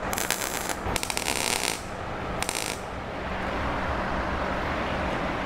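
Welding arc crackling in short tack-weld bursts on thin sheet-metal patch panels, three bursts over the first three seconds, then only a steady low hum.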